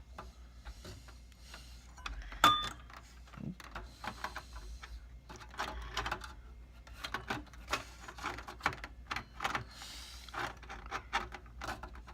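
Clicks, knocks and scraping of a metal CPU heatsink being handled and fitted inside a server case. A sharper metallic clank about two seconds in rings briefly.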